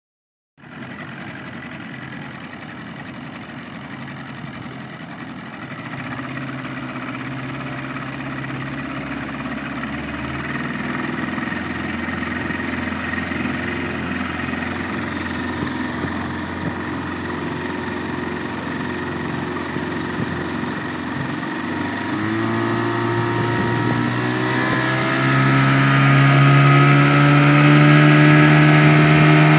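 Outboard motor pushing a small fishing boat, running steadily at first, then throttled up about two-thirds of the way through, its pitch climbing and holding higher and louder as the boat speeds up. A rush of wind and water runs underneath.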